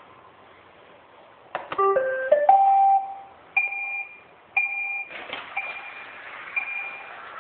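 iRobot Roomba 560 playing its electronic tune: a quick run of stepped beeps about a second and a half in, then two single beeps a second apart, and further beeps over a steady hiss near the end.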